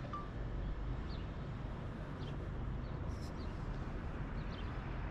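Outdoor ambience: a steady low rumble, with small birds giving short high chirps every second or so.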